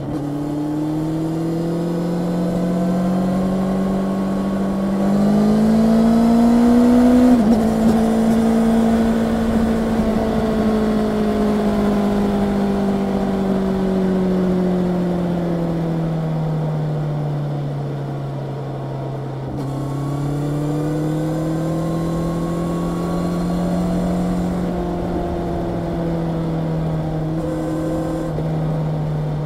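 Honda CB650R's inline-four engine pulling on the road: its note climbs for the first seven seconds, falls slowly for about ten seconds as the throttle eases, then steps up suddenly in pitch about two-thirds through and climbs again.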